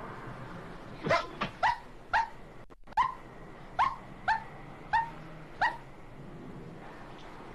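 Dog barking: a run of about nine short, sharp barks, starting about a second in and stopping near the end.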